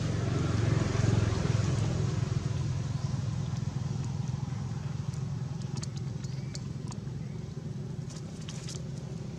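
A motor vehicle's engine running, a steady low hum that swells over the first couple of seconds and then settles, with a few faint sharp clicks in the second half.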